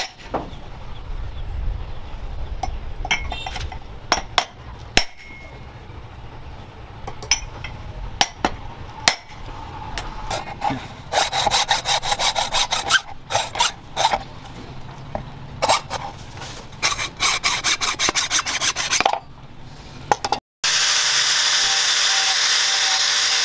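A few sharp hammer knocks as the axe head is driven onto its wooden handle, then a run of hacksaw strokes cutting through the end of the wooden handle. Near the end an angle grinder with a flap disc starts up and runs steadily, grinding the steel axe head.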